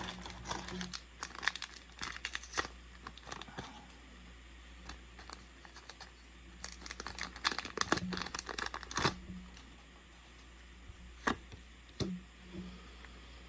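Foil trading-card booster pack wrapper being torn open and crinkled, in two spells of crackling, one at the start and one about seven seconds in, with a couple of single clicks near the end.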